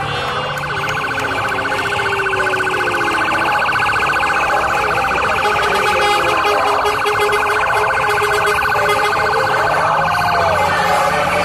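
An electronic siren holds a steady, fast-pulsing tone that grows gradually louder as it approaches.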